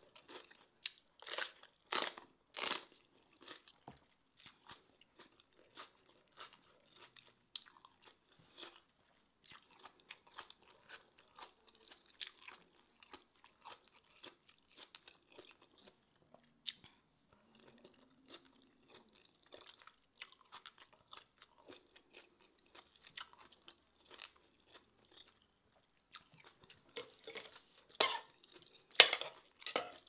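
Close chewing and crunching of a person eating: three loud crisp bites in the first few seconds as she bites into a whole fresh red chili, then soft wet chewing, and another cluster of loud clicks and crunches near the end.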